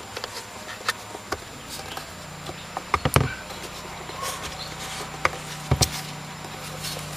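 Plastic clicks and knocks as a BMW E46 rearview mirror and its wiring connector are handled and worked off the windshield mount, loudest in a cluster about three seconds in and again near six seconds. A low steady hum comes in about two seconds in.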